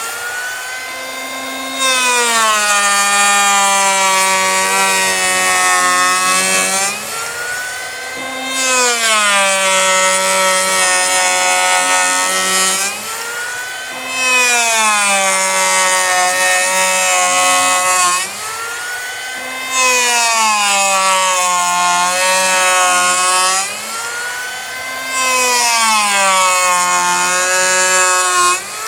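Handheld electric power planer cutting across a hickory slab in five passes, each a couple of seconds of loud shaving noise. The motor's whine drops in pitch as the cutter bites and rises again as it runs free between passes.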